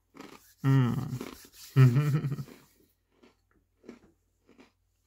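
Two short vocal sounds with a bending pitch, each under a second and about a second apart, followed by a few faint clicks.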